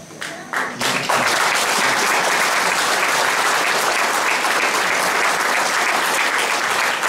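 Audience applauding: a few scattered claps in the first second, then steady, loud applause.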